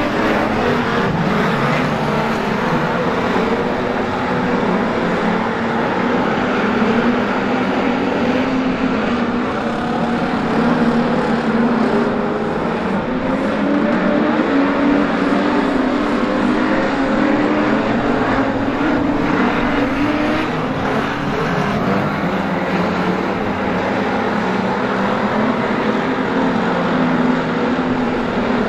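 A pack of dirt-track street stock race cars running together, several engines revving and easing off in turn as the cars lap, the pitch rising and falling continuously.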